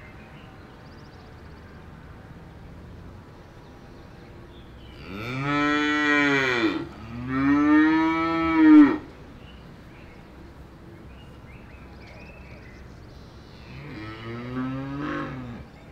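Cattle mooing: two long, loud moos back to back about five to nine seconds in, each rising then falling in pitch, and a fainter moo near the end.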